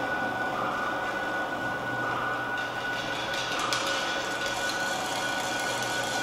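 Sound and light installation running: a steady mechanical drone with a high held tone. More hiss and a few faint clicks join in about halfway through.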